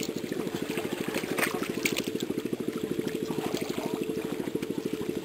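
Small engine running steadily with a fast, even beat, with water splashing and two short sharp splashes about one and a half and two seconds in.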